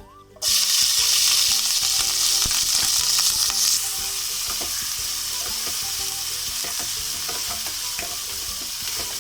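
Chopped onions hitting hot ghee and oil with a sudden loud sizzle about half a second in. The sizzle eases a little after a few seconds into steady frying, with scattered clicks of stirring in the pan.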